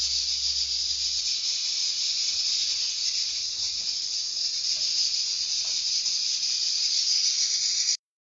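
Small pieces of pork fat (torresmo) sizzling steadily as they fry in a pot; the sound cuts off suddenly near the end.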